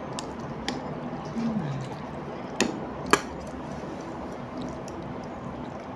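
Wooden chopsticks clicking against a ceramic bowl of laksa noodle soup, with two sharp clicks about two and a half and three seconds in, among quieter eating sounds.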